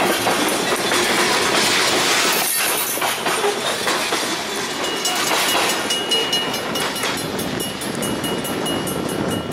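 Covered hopper cars of a freight train rolling past close by, wheels clacking over the rail joints. A thin, steady high-pitched tone comes in about halfway through.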